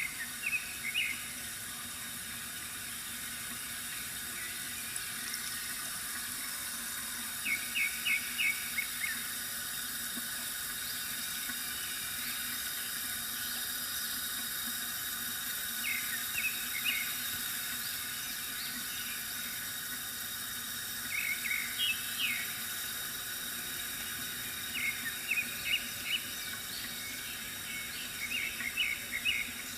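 Water trickling steadily from a bamboo fountain, with small birds chirping in short runs of quick notes every several seconds, most often near the end.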